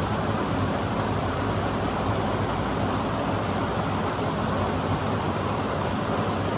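Steady, even noise with a low hum underneath, unchanging throughout.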